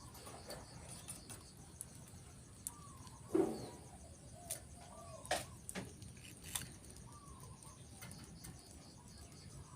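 Bird ambience: short low whistled calls that bend down in pitch, recurring every second or so, over a faint steady high chirring. Scattered sharp clicks are heard throughout, and a louder thump comes about three and a half seconds in.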